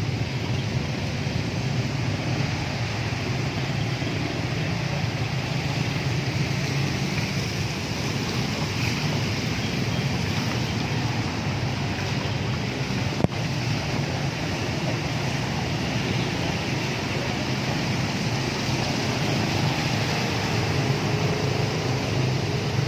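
Floodwater rushing and washing across a street while cars and motorbikes drive through it: a steady wash of water over a low traffic rumble, with one sharp click about halfway through.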